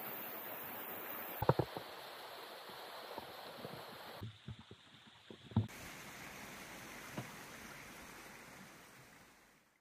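Mountain stream running as a steady rush, with footsteps thudding on the wooden slats of a footbridge and boardwalk, a few loud ones a second and a half in and a cluster around the middle. The sound fades out near the end.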